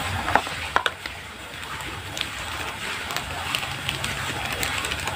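Plastic spatula scraping and knocking in a plastic tray as a damp bait mix is stirred, with a few sharp clicks in the first second, then hands squeezing and kneading the mix with scattered faint ticks over a steady background hiss.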